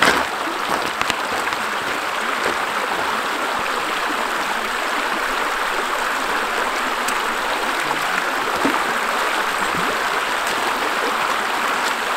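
Shallow creek flowing steadily over a rocky bed.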